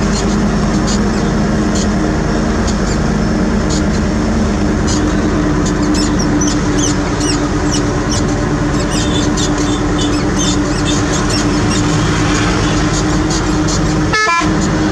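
Heavy diesel engine of the equipment running at a steady speed, with a continuous low droning tone, scattered short high squeaks and clinks over it, and a brief dip about a second before the end.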